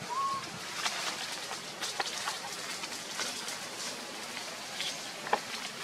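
Footsteps and movement crackling through dry leaf litter, with scattered sharp snaps like twigs breaking, the sharpest near the end. A single short high call sounds right at the start.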